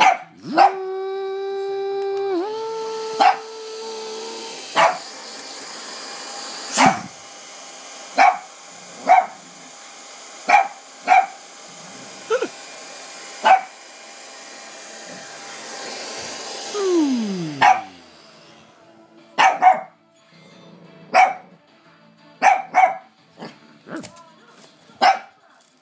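Lhasa apso barking in sharp single barks, again and again, at a hover toy. The toy's small electric fan motor starts with a whine that steps up in pitch, runs steadily, then winds down with a falling pitch about 17 s in. The barking goes on after the motor stops.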